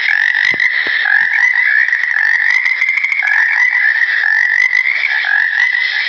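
A chorus of frogs croaking, a dense, steady trilling without a break.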